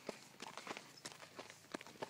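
Hoofbeats of a horse at a walk, heard from the saddle: uneven footfalls of about three a second.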